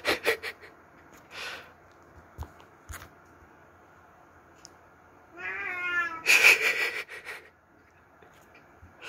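Domestic cat yowling: a few short cries near the start, then about five seconds in a drawn-out wavering howl that breaks into a loud, harsh scream for about a second.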